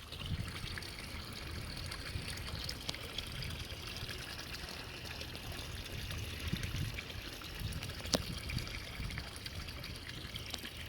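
Water trickling and splashing steadily from a garden pond's waterfall, over a low rumble, with one sharp click near the end.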